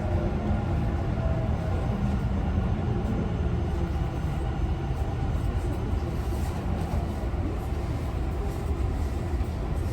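Running noise heard inside a Tobu 50090-series electric train car: a steady low rumble from the wheels and track, with a faint motor whine that drifts slowly in pitch. This car's traction motors sound slightly unusual, which the uploader thinks may be a different type of motor.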